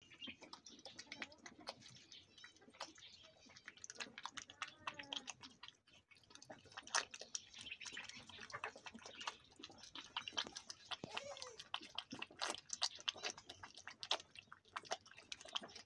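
A young goat kid sucking milk from a baby bottle's nipple: a run of quick, irregular wet smacking and clicking sounds of suckling.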